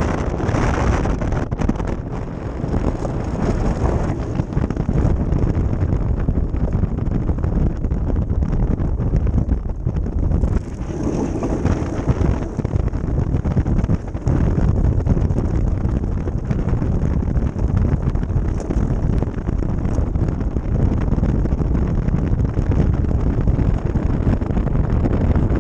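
Ice boat sailing over clear lake ice: steady wind rushing over the microphone together with the low rumble of the runners on the ice.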